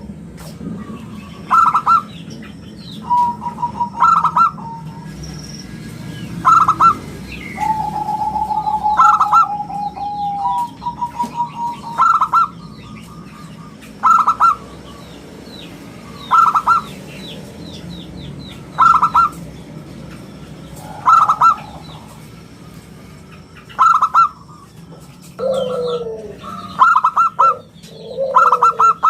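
Zebra dove (perkutut) cooing: short bursts of quick notes repeated about every two and a half seconds, with a longer rolling trill twice early on. There are faint high chirps from other small birds and a steady low hum underneath.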